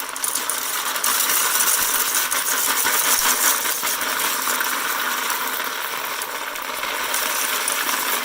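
Whole coffee beans being poured into the bean hopper of a Krups GX5000 burr grinder: a continuous, dense rattle of many small hard beans clattering in, growing louder about a second in.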